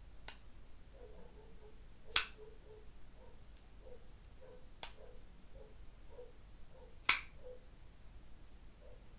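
Skif Townee Jr folding knife being flipped open and shut, its blade clicking into place with sharp clicks: five in all, the loudest about two seconds in and about seven seconds in.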